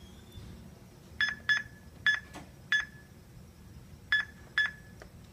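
Stratus time clock's touchscreen keypad beeping once for each digit pressed while an employee number is entered: six short, high beeps at uneven intervals.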